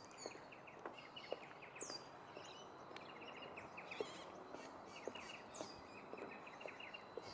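Faint birdsong from several birds. One repeats a high, downward-swooping note every two seconds or so, while others give quick runs of short notes.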